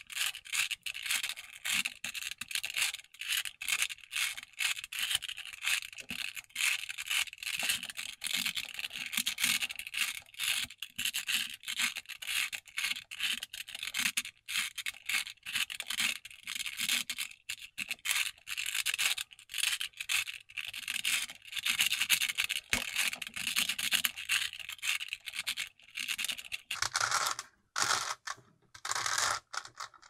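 A 5x5 Rubik's cube being turned quickly by hand: a dense run of clicking and scraping as the layers rotate, with brief pauses near the end. It is being put through the last 3x3-style stage, the R' D' R D sequence repeated to twist the last corners into place.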